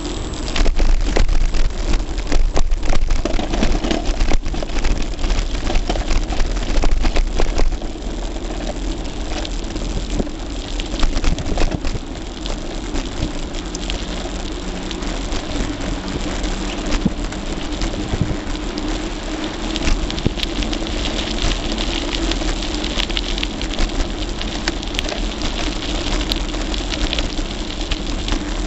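Road noise and rattle from a Gary Fisher Tassajara mountain bike rolling over rough asphalt, picked up by a camera on a tripod taped to its handlebars: a steady rushing noise full of small clicks and jolts. It is louder and bumpier for the first several seconds, then evens out.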